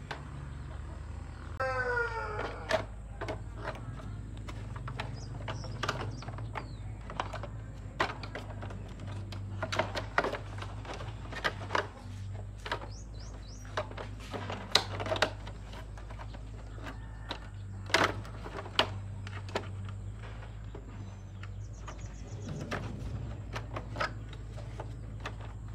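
Hand tools clicking and knocking on metal parts at irregular intervals, over a steady low hum. A short rising call, like a bird's, comes about two seconds in.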